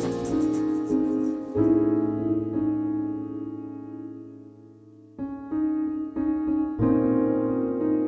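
Background music played on piano: a chord struck and left to ring, fading away over a few seconds, then new notes and chords picking up again.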